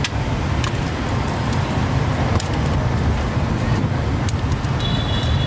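Street ambience: a steady low rumble, like road traffic, with scattered short clicks and clinks and a brief thin high tone near the end.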